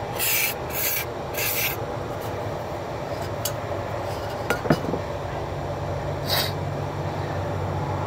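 Aerosol spray can squirted into a padlock body in three short hissing bursts, with one more burst past the middle, to flush out dirt. A sharp click comes a little past halfway, and a low steady hum sets in about halfway through.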